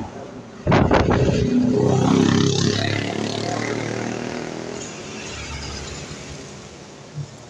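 A bus going past close by, its engine loud as it comes in suddenly about a second in, then fading steadily over several seconds as it moves away.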